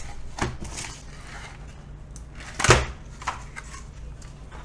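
Cardboard motherboard packaging being handled: the black box insert and tray rubbed and knocked about, a few soft knocks and scrapes with one louder knock a little past halfway.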